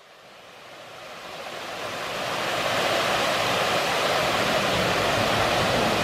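Water pouring over a small curved concrete weir into the pool below: a steady rush of falling water that swells up from faint over the first two or three seconds and then holds steady.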